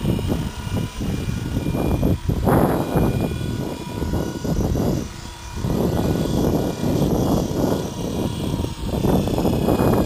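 Gusty wind buffeting the microphone, swelling and dipping, over the faint steady whine of a 500-size flybarless RC helicopter's motor and rotor.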